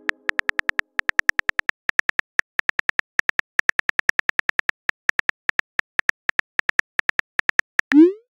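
Simulated phone-keyboard typing sounds from a texting-story app: a rapid run of short, tinny key clicks, about six a second. It ends with a short rising whoosh as the message is sent.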